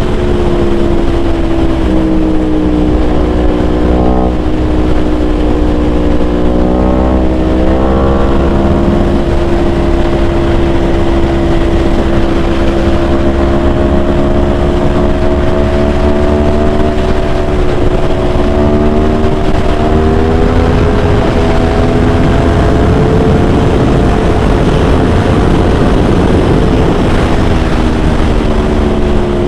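Yamaha R1 superbike's inline-four engine with a full titanium exhaust running on the move, its pitch rising and falling with throttle and gear changes, over a steady rush of noise.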